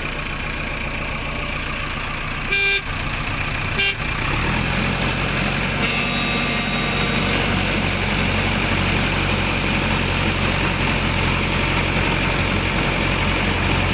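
Heavy machinery engine running steadily, with two short horn toots a few seconds in. The engine then grows louder and stays up, as if under more throttle.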